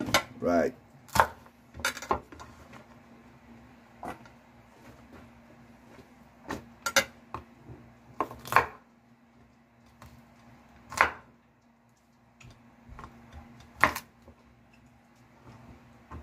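Knife chopping yardlong beans on a wooden cutting board: irregular sharp knocks of the blade striking the board, about ten of them, spaced a second or more apart. A faint steady hum runs underneath.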